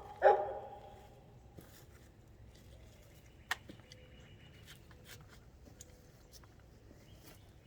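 A dog barks once just after the start, a short pitched bark. Then quiet outdoor background with a single sharp click about three and a half seconds in.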